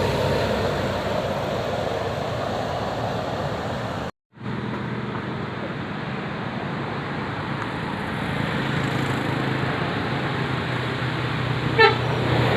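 Bus engine running amid street traffic noise, with a brief horn toot near the end. The sound drops out completely for a moment about four seconds in.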